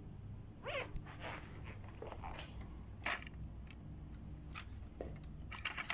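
Handling noise: scattered clicks and rustles, with a short squeak falling in pitch about a second in and a quick run of clicks near the end, over a steady low hum.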